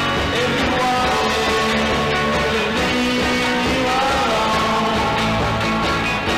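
Rock music playing at a steady level, with a melody line moving over the accompaniment.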